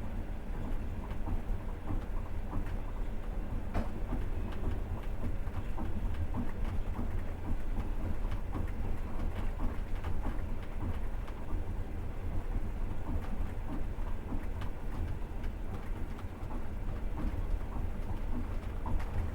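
Passenger train running, heard from inside the carriage: a steady low rumble of the wheels on the rails, with constant small rattles and clicks.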